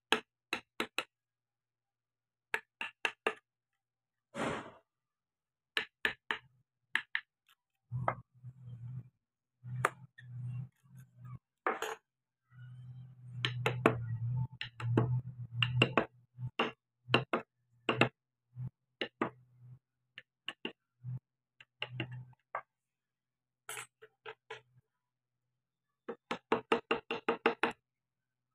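Carving chisel being struck with a mallet, cutting into wood: a long series of short, sharp taps in bursts and quick runs of about five or six a second, with deeper thuds under the strokes in the middle stretch.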